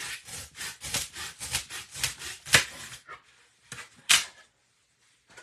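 A kitchen knife sawing back and forth through a block of styrofoam, with quick scraping strokes about four a second that stop about three seconds in. Two sharp sounds follow about a second later, the second of them loud.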